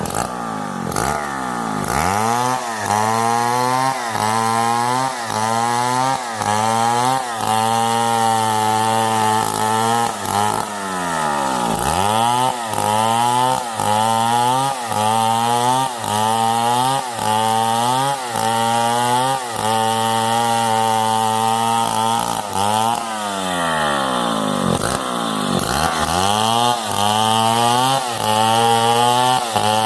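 A Stihl 070 two-stroke chainsaw is running at high revs while cutting wood. Its engine pitch dips and recovers about once a second, with two deeper drops, one about a third of the way in and one a little past the three-quarter mark.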